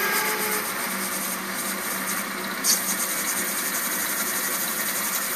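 Hardinge DV59 turret lathe running steadily, with a cutting hiss from the parting tool working brass bar stock. There is one brief sharper sound a little under three seconds in.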